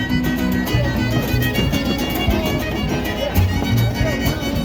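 A son huasteco (huapango) trio playing live: a violin melody over the strummed jarana and the plucked bass notes of the huapanguera.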